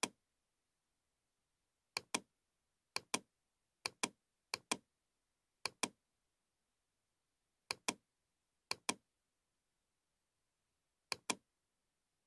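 Computer mouse button clicking about eight times at uneven intervals, each click heard as a quick pair of sounds, the button's press and release.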